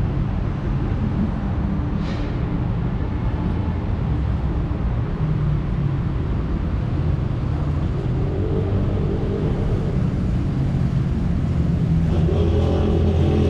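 Road traffic on a busy city street: car engines running steadily, louder as a vehicle passes near the end.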